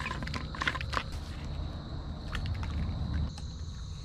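Insects droning outdoors with a thin, steady high tone, joined by a second, higher tone about three seconds in, over a low rumble; a few sharp clicks and rustles sound in the first second.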